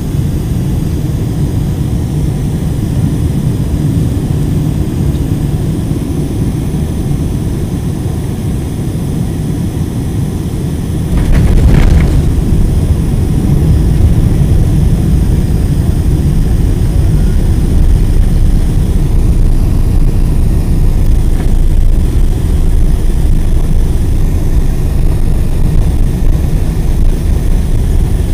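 Cabin noise inside a Boeing 747 landing: a steady low rumble of engines and airflow, then about eleven seconds in the wheels touch down with a brief thud and the rumble jumps louder and stays so as the jet rolls down the runway.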